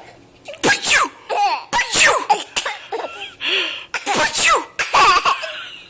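A person sneezing several times in quick succession, with a baby laughing in high, gleeful squeals between and over the sneezes.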